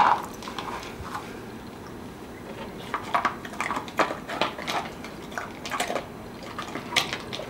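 A dog eating treats out of a small collapsible travel bowl: irregular short crunches and clicks from about three seconds in.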